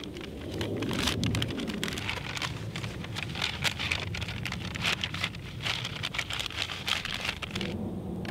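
Plastic bag of an MRE flameless ration heater being opened and handled, a rapid crinkling and crackling that stops shortly before the end. A steady low rumble runs underneath.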